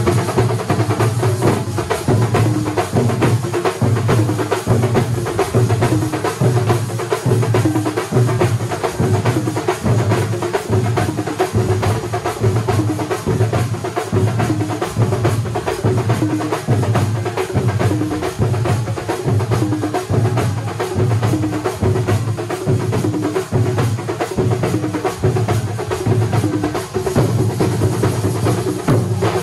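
A thambolam percussion ensemble of many large stick-beaten drums playing together: a dense, fast stream of sharp strokes over a heavy deep beat about once a second, steady throughout.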